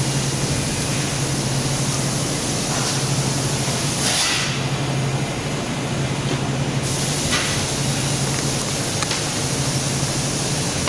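Custom industrial washer and dryer system running: a steady rushing noise over a constant low hum. About four seconds in there is a brief louder hiss, after which the hiss thins for a couple of seconds.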